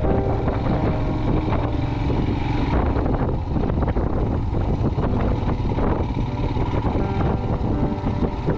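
Motorcycle on the move, its engine running under a steady rush of wind buffeting the microphone.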